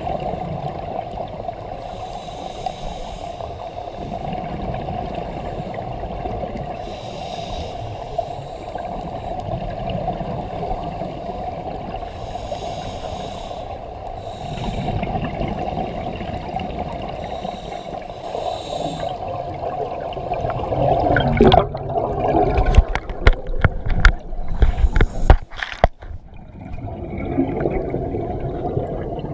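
Underwater sound through a camera housing: scuba regulator breathing, with a burst of exhaled bubbles about every five seconds over a steady watery hum. In the last third, loud irregular crackling and knocking as a mass of exhaled bubbles washes over the camera.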